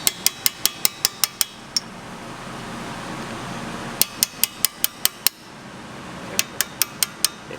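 A hammer tapping on a punch to drive out the brake-pad retaining pins of a front brake caliper: three quick runs of sharp metallic taps, about five or six a second.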